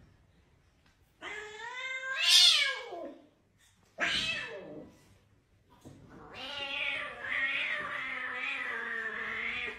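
Domestic cat yowling in protest at a monkey pestering it: a drawn-out cry that rises and falls, the loudest, a short falling cry about four seconds in, then a long wavering yowl through the last few seconds.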